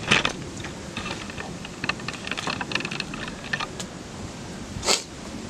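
Rustling with scattered small clicks and crackles, and a louder rustle just after the start and another near the end.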